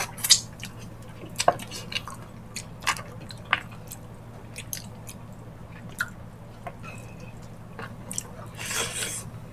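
Close-miked chewing and wet mouth sounds of people eating ox-feet balbacua, a sticky, gelatinous stew, by hand: scattered sharp smacks and clicks, with a longer squelchy sound near the end.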